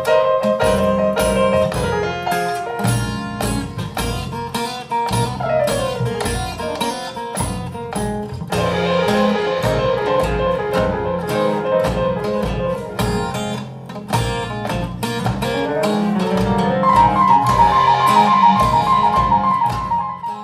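Instrumental music: quick plucked-string notes, guitar-like, over a bass line.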